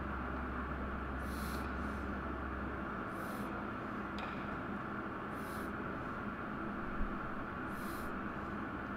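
Steady outdoor background hiss with short bursts of higher hiss about every two seconds, a faint click a little before the middle and a single brief thump about seven seconds in.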